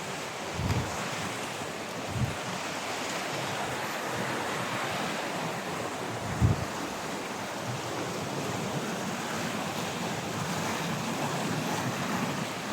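Steady rush of flowing river water mixed with wind on the microphone, broken by three short low thumps.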